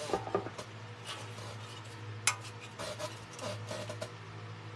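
A silver-plate tray being slid across and lifted off a table: scraping and rubbing handling noise with a sharp knock about two seconds in. A steady low hum runs underneath.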